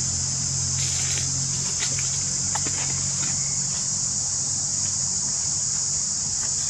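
A steady, high-pitched chorus of insects droning without a break. Underneath it a low, steady hum fades out about halfway through, and there are a few faint clicks near the start.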